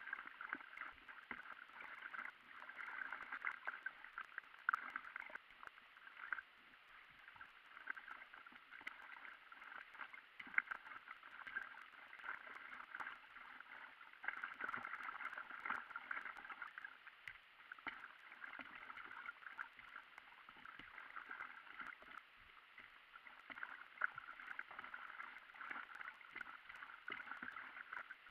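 Paddle strokes and water moving around a Red Paddle Co 12'6" Explorer inflatable stand-up paddleboard on a calm river. It is sped up eightfold with the video, so it comes as a fast, high chatter of water with many small clicks.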